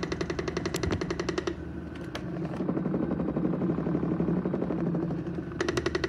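SOMODE vibration plate exercise machine running under a person's foot, giving a fast, even rattle. About one and a half seconds in the rattle gives way to a smoother hum, and the fast rattle returns shortly before the end.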